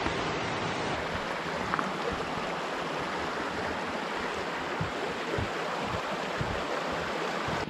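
Steady rush of fast-flowing water, an even hiss with no let-up.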